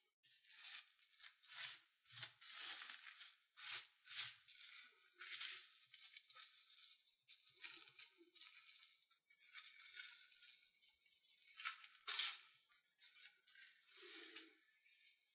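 Crinkly rustling of a thin wrapping sheet being handled, in a string of short bursts with a few soft thuds.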